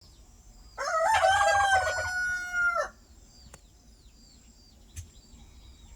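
A rooster crowing once: a single cock-a-doodle-doo of about two seconds, starting about a second in, with a long held final note that drops off at the end. Faint high chirps follow.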